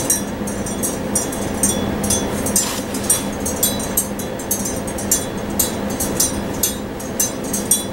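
Calorimeter's metal stirrer being worked up and down in the water, clinking about twice a second over a steady low hum. The water is being stirred after combustion to carry all the released heat into it until the highest temperature is reached.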